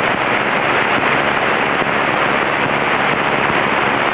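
Steady in-flight cabin drone of a Cessna 172N's piston engine and propeller, mixed with the rush of airflow, with no change in power.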